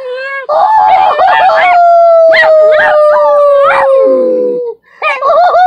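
Small dog howling: wavering cries that settle into one long, slowly falling howl, with another wavering howl overlapping it in the middle. The howl breaks off shortly before the end and a new one starts.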